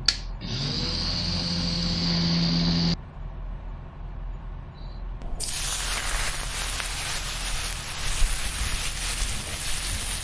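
A click, then an Ikon electric mini chopper's motor spinning up and running steadily for about two and a half seconds before cutting off. After a short lull, a steady crackling hiss from the pan of white sauce begins and runs on.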